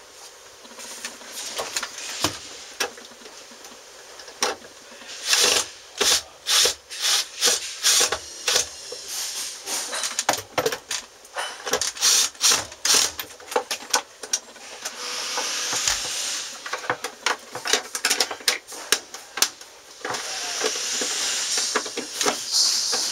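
Irregular clicks, taps and knocks of tools and parts being handled during wiring work, with two stretches of steady hiss, about fifteen and twenty seconds in.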